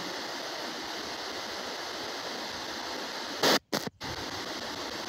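S-Box spirit box ghost scanner sweeping the radio band: steady radio static, with a brief louder burst about three and a half seconds in, then two short cut-outs to silence as the sweep mutes between stations.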